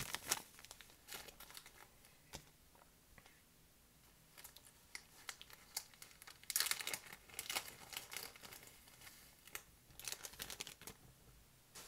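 Crinkling and rustling of plastic packaging being handled, in irregular bursts, the sound of fly-tying material being taken out of its packet.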